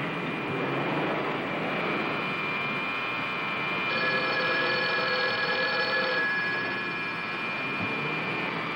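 Telephone bell ringing once for about two seconds, starting about four seconds in.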